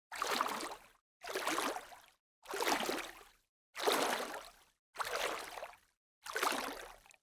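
Water splashing or sloshing in a regular series of about six short splashes, roughly one a second, each starting sharply and fading out, with dead silence between them.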